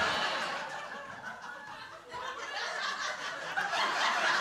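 Theater audience laughing; the laughter fades about two seconds in, then swells again.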